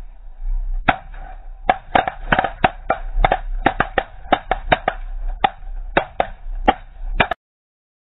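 An irregular series of sharp knocks or taps, about twenty in six seconds, that stops abruptly a little after seven seconds in.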